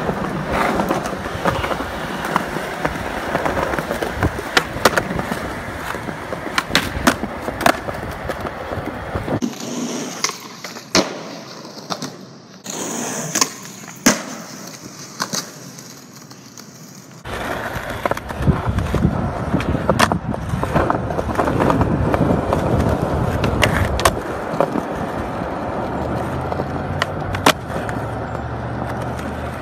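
Skateboard wheels rolling over concrete and asphalt, broken by many sharp clacks from tail pops and the board landing. The rolling is quieter through the middle of the stretch.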